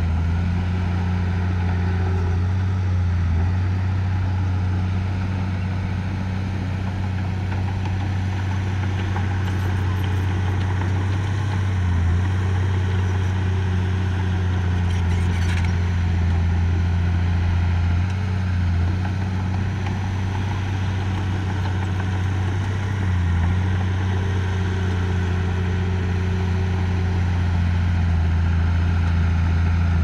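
Diesel engine of heavy earth-moving machinery running steadily with a low, even drone. It dips briefly a few times.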